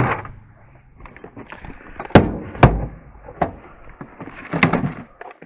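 Knocks and clunks of tools and objects being handled and set down in a metal truck toolbox: a few sharp strikes, the loudest a pair a little over two seconds in, the second a deep thud, with rummaging between.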